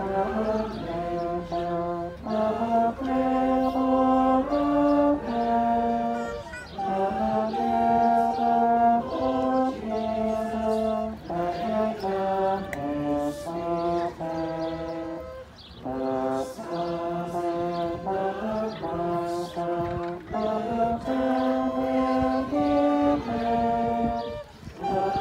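A Christmas carol performed in slow sustained chords, in phrases of about four to five seconds with short breaks between them.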